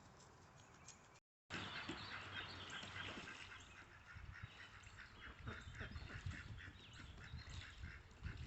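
Domestic ducks and a goose calling, a quick run of short repeated calls that starts after a brief break about a second in.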